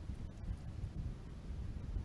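Wind buffeting the microphone: a low, irregular rumble.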